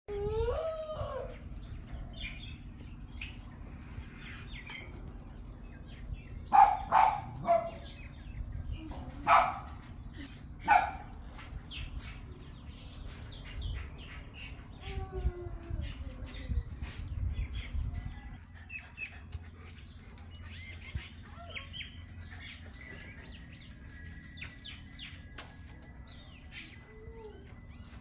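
Birds calling and chirping, with a rising call at the very start and several short, loud calls between about six and eleven seconds in, over many small chirps. A low rumble underneath eases about eighteen seconds in.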